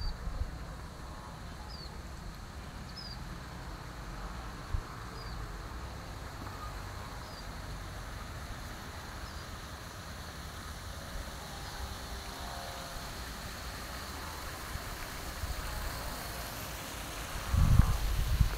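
Outdoor ambience: low wind rumble on the microphone, with a faint short high chirp repeating every second or two. Near the end the wind buffets the microphone louder for about a second.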